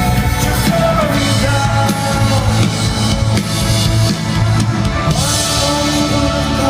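Live rock band performing at full volume: drum kit, amplified instruments and singing.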